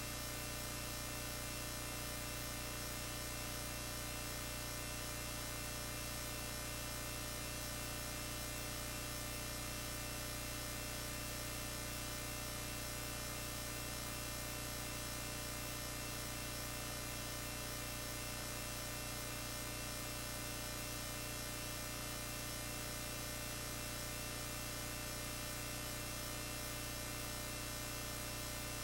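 Steady electrical mains hum with a faint hiss behind it, unchanging throughout, with no other sound.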